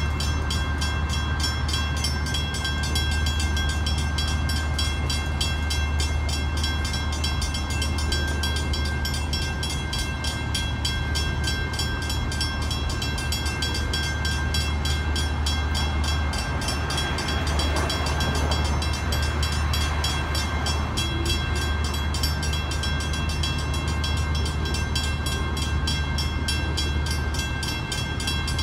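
Freight cars rolling across a grade crossing with a steady low rumble, while the crossing warning bells ring continuously over it in a high, even pulse.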